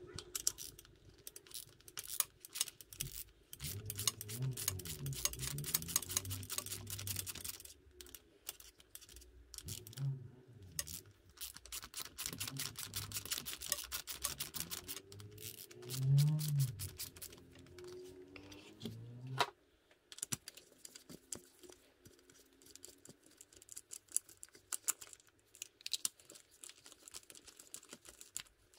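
Dense runs of rapid clicks and rattles from hand tools and small metal parts, over a low wavering hum that cuts off abruptly about two-thirds of the way through.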